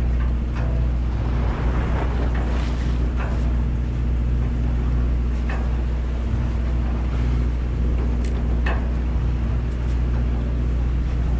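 A boat's engine drones steadily under wind and the sound of the sea, with a few brief knocks scattered through.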